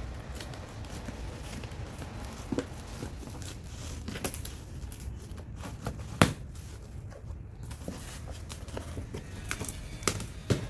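A cardboard shipping box being opened and handled by hand: scattered tearing, crinkling and light taps, with one sharp knock about six seconds in.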